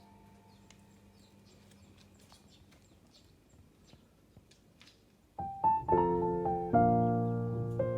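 Background music: a quiet, fading stretch with a few faint clicks, then a piano melody starts suddenly about five seconds in.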